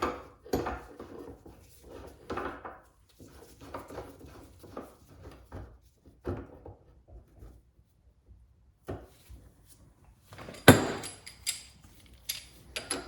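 U-joint bearing cap being pressed further into a double cardan yoke: scattered metal clicks and creaks, with a sharp loud click a bit over ten seconds in that tells the cap has gone in far enough.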